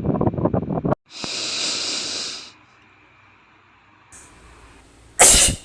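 A man sneezing once, a short sharp burst near the end that is the loudest sound. About a second in there is a hissing breath that lasts over a second. Before that, until about a second in, there is rustling, wind-like noise on the microphone.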